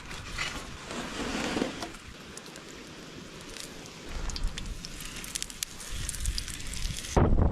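Campfire crackling, with scattered sharp pops over a soft hiss. Near the end it cuts abruptly to loud wind buffeting the microphone.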